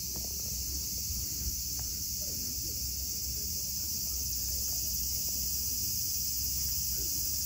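Steady high-pitched drone of a summer insect chorus, unchanging throughout, over a faint low outdoor rumble.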